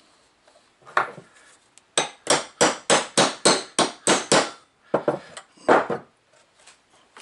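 Hammer blows: a single strike, then a quick run of about eight taps at roughly three a second, then two more strikes.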